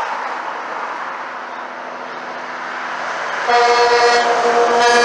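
Traffic passing on a road, then about three and a half seconds in a truck's air horn sounds one steady blast of about a second and a half, a two-note chord.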